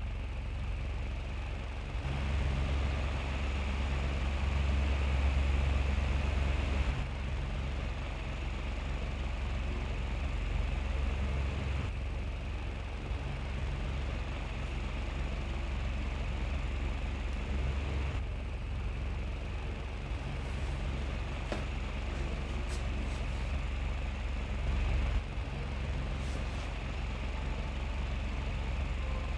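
Small DC-motor mini ceiling fan running steadily, its air stream blowing on the microphone as a low rumble with a hiss of moving air.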